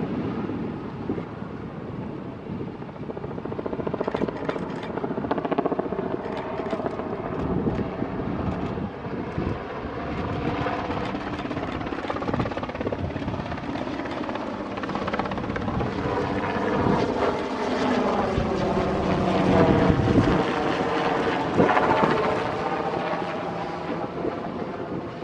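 Westland Wessex helicopter in a display flight: steady turbine and main-rotor beat, growing louder in the second half as it passes close, with its pitch sliding down during the pass.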